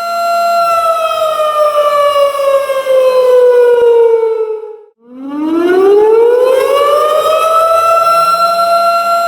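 Tornado warning siren wailing: a steady high tone falls in pitch over about four seconds and cuts out briefly about five seconds in. It then winds back up from a low pitch and holds its steady tone again.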